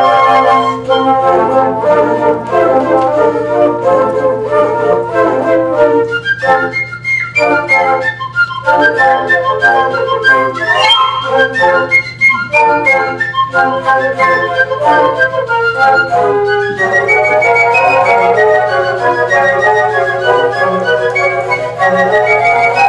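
Flute choir of concert, alto and bass flutes playing a multi-part arrangement together, with several melodic lines at once; the texture changes about two-thirds of the way through.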